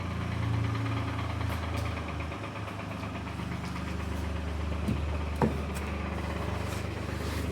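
Mini F56's BMW B38 three-cylinder engine idling with a steady clattering rattle and knocking, the sign of a failed drive-belt tensioner. Two sharper knocks come about five seconds in.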